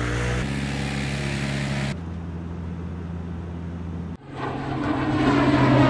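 Propeller airplane engine drone as a steady low hum that cuts off suddenly about four seconds in, after which music swells up.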